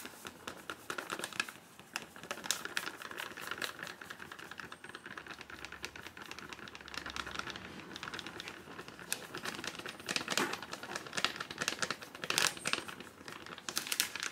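Rice flour poured from a bag into a glass mixing bowl: a soft trickling hiss with many fast crinkly ticks from the bag, and louder bursts of bag crinkling a couple of times in the second half.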